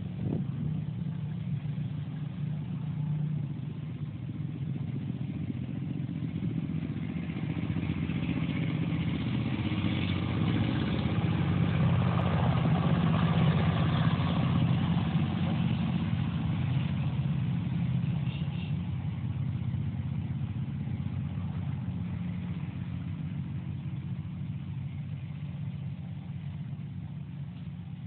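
An engine running steadily with a low hum, slowly growing louder to a peak about halfway through and then gradually fading.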